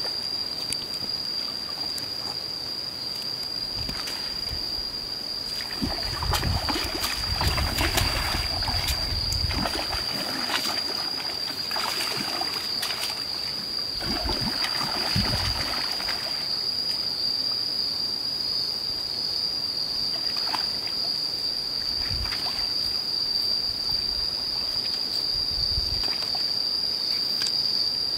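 A hooked fish thrashing and splashing at the surface, in two spells of bursts, the first about six seconds in and the second about fourteen seconds in. A steady high-pitched insect drone runs underneath throughout.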